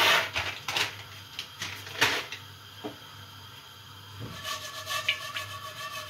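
Popcorn kernels shaken from a plastic bag into a pan of oil: a loud rattle right at the start, then two more sharp rustles of the bag under a second and about two seconds in. From about four and a half seconds in come a few light clicks as the gas stove's knob is turned.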